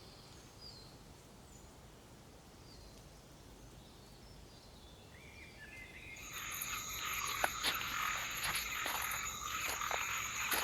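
Wild night-time chorus ambience: faint at first with a few thin chirps, then about six seconds in a dense chorus comes up, many rapid croaks and clicks over steady high-pitched trilling.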